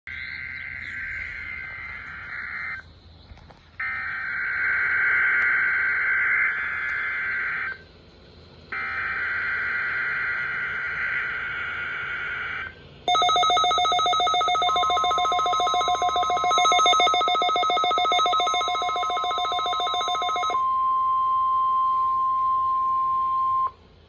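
EAS Required Weekly Test received on Midland NOAA weather radios: three screechy bursts of SAME digital header data, each a few seconds long with a short gap between. About 13 s in, a loud, rapidly pulsing electronic alert starts, with a steady single alert tone coming in under it about 15 s in, the NWS 1050 Hz warning alarm tone. The pulsing stops about 20 s in and the tone runs on alone until it cuts off near the end.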